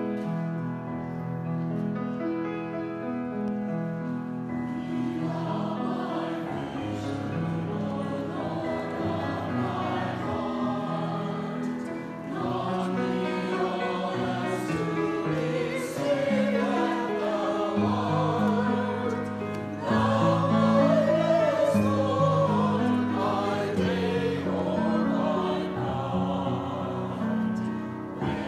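Mixed church choir singing with piano accompaniment. The piano plays alone for the first few seconds before the voices come in, and the music grows louder about two-thirds of the way through.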